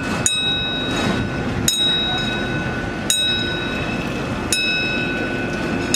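Big Chute Marine Railway's boat carriage rolling along its rails with a steady rumble. Over it, a warning bell strikes about every second and a half, each ring lingering until the next.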